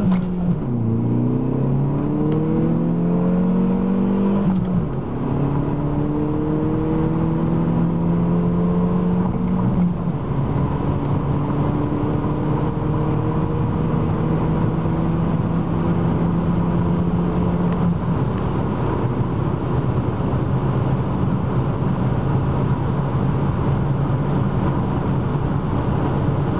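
1999 Saab 9-3 Turbo's turbocharged four-cylinder engine, fitted with an aftermarket intake, pulling hard under acceleration, heard from inside the cabin. The engine note rises through each gear and drops back at upshifts about 5 and 10 seconds in, then climbs slowly and levels off in a higher gear.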